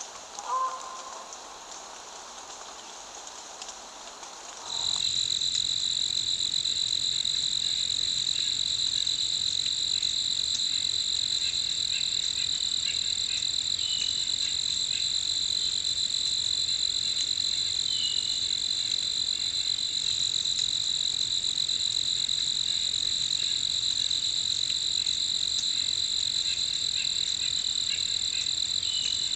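A soft hiss, like light rain, for the first few seconds, then a steady, high-pitched chorus of crickets trilling without a break, starting abruptly about five seconds in.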